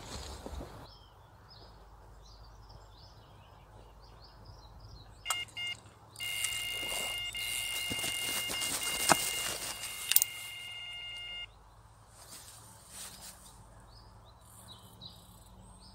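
Electronic carp bite alarm going off: a few short bleeps about five seconds in, then a continuous steady tone for about five seconds as a carp runs with the bait and pulls line. Birds chirp faintly before and after.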